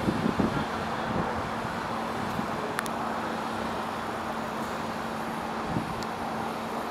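R142A subway train pulling away on the elevated track, its rumble strongest in the first half second and then settling into a steady low rumble and hum as it recedes. There is a faint click about three seconds in.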